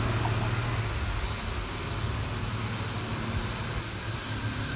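Hot-air rework gun blowing steadily onto an LED on a TV backlight strip to desolder the burnt-out LED bead: a constant rushing hiss of air over a low motor hum.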